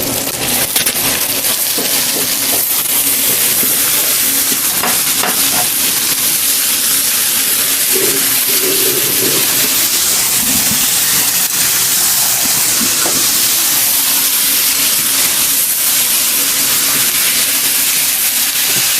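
Chicken pieces sizzling in hot coconut oil with frying shallots and coconut: a steady, loud frying hiss that swells about a second in as the chicken goes into the pan.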